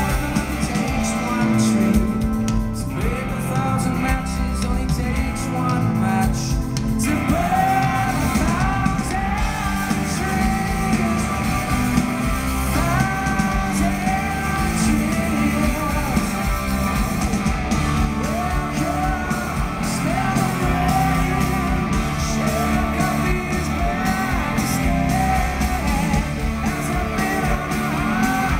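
Live rock band playing electric guitars, bass and drums, with a male lead vocal singing over them, heard from within the crowd.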